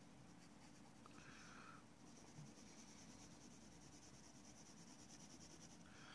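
Faint scratching of a graphite pencil shading on paper.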